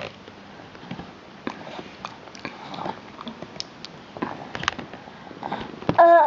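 A baby eating from a spoon: small, scattered mouth clicks and smacks, then a loud wavering baby vocalization that starts near the end.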